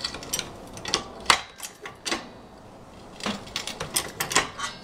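Irregular clicks, taps and knocks of metal tools and car parts being handled, a dozen or so spaced unevenly, the loudest about a second in.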